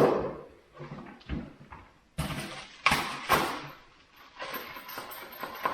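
Hard plastic tool case being opened and handled: several sharp clacks and knocks of plastic parts, then a softer rustling near the end as the contents are moved about.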